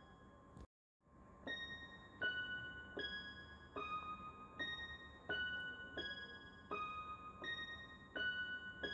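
Background music of single piano-like keyboard notes, about one every three-quarters of a second. The track cuts out completely for a moment about a second in, then carries on.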